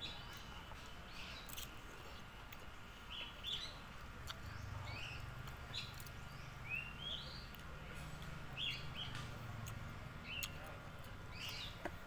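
Small birds chirping: short rising chirps repeated every second or so, over a low steady hum and a few light clicks.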